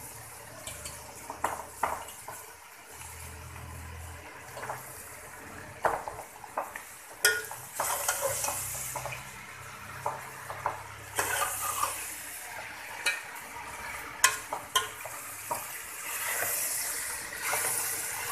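Vegetables sizzling as they stir-fry in a metal pot, with a steel spoon scraping and clinking against the pot in frequent sharp knocks. The sizzle swells in several stretches as boiled macaroni is added and mixed in.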